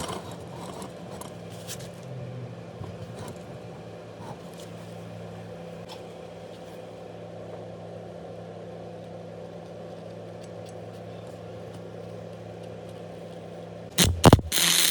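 Welding machine humming steadily at idle, with scattered light clicks. Near the end a loud, dense crackling starts suddenly: the welding arc being struck.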